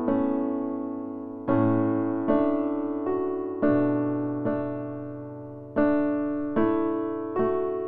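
Background music: slow, gentle piano playing held chords, a new chord struck every one to two seconds and each left to fade.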